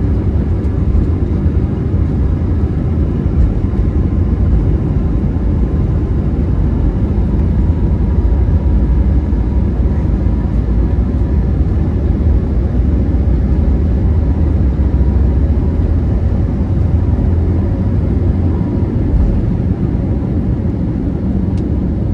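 Steady low roar of an Airbus A321neo's engines and airflow, heard inside the passenger cabin during the climb after takeoff, with a faint steady whine.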